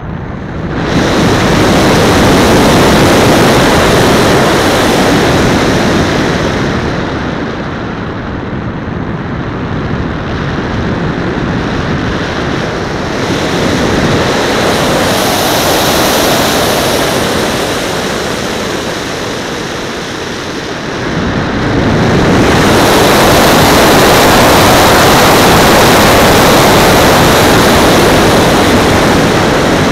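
Airflow rushing over the microphone of a camera mounted on the wing tip of a radio-controlled glider in flight. It is loud from about a second in, eases for a while, and grows loud again about two-thirds of the way through as the airspeed changes.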